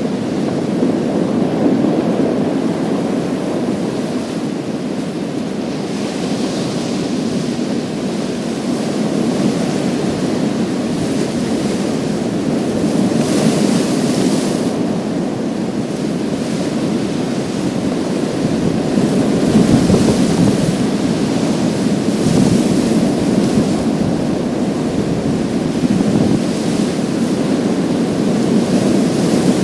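Sea waves breaking on a pebble beach and washing over the stones: a continuous low surge with a brighter hiss swelling up every six or seven seconds as each wave runs in.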